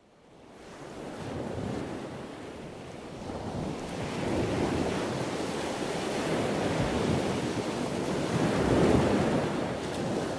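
Ocean surf washing in, fading up over the first couple of seconds, with waves swelling and easing.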